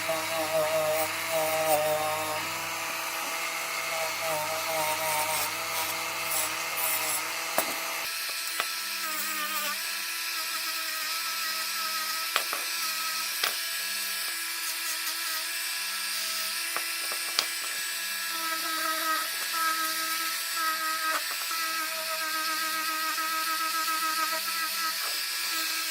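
Small high-speed rotary tool running as it polishes a bare die-cast metal car body, its whine wavering in pitch under load. About eight seconds in the sound changes and the low hum drops away, and a few sharp clicks follow.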